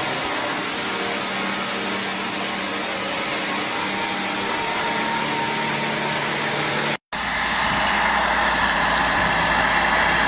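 Heavy machinery engines running steadily: one engine hum that stops abruptly about seven seconds in, followed straight away by a louder, harsher-running diesel-type engine with a low hum.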